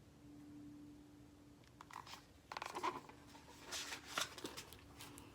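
Faint paper rustling and a few soft clicks from the pages of a picture book being handled and turned, over a faint steady hum.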